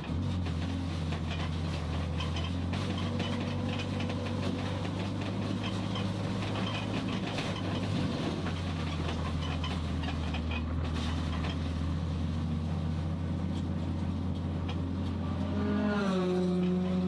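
Toyota Starlet Glanza race car's engine heard from inside the stripped cabin, pulling at fairly steady revs on track. Near the end its pitch drops and settles lower.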